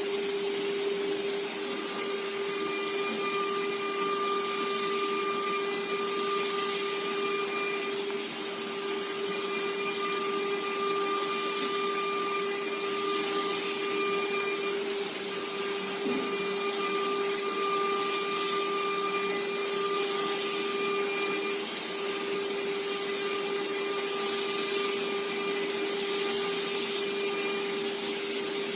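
Small CNC machine running, its drill spindle motor giving a steady high hiss and whine. A higher whine from the axis drive motors comes and goes in stretches of a few seconds as the axes move.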